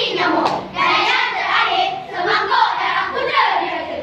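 A choir of schoolchildren voicing a choral-speaking (bicara berirama) piece together in unison, the pitch of the many voices sliding up and down. There is a sharp knock about half a second in and another at the very end.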